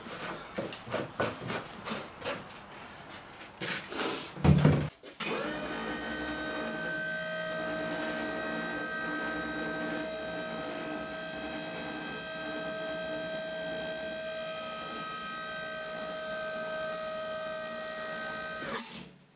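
A few clunks and a heavy thump from handling the oil containers, then an electric lift motor starts. It runs at a steady, unchanging pitch for about fourteen seconds as it raises the platform carrying the steel oil tank, and cuts off abruptly near the end.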